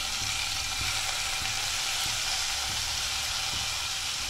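Drumstick leaves (sajana saag) frying in hot oil in a pan, a steady sizzle.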